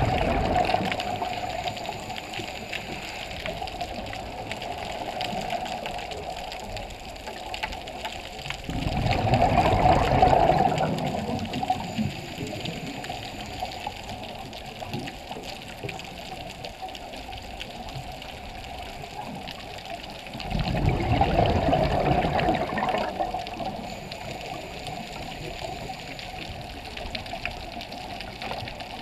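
Scuba diver's exhaled breath bubbling out of a regulator underwater, in three gurgling bursts of about two to three seconds roughly ten seconds apart, with a steady watery hiss between them.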